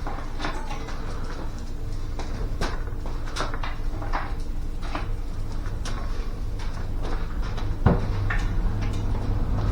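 Metal pipes and plastic connectors of a portable sauna frame being handled and fitted together: irregular clicks and knocks, with a louder knock near the end, over a steady low rumble.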